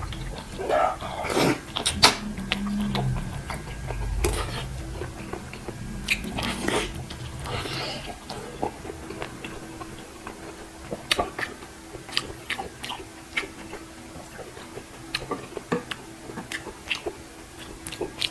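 A person eating close to the microphone: chewing and biting through a meal of beef shank soup. Many short sharp clicks and smacks are scattered irregularly throughout.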